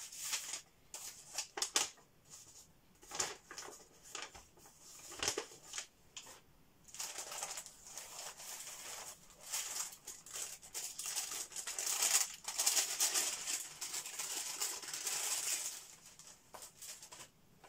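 Plastic mailer bag and packaging rustling and crinkling as hands dig through a parcel: scattered short rustles at first, then several seconds of continuous crinkling that dies away near the end.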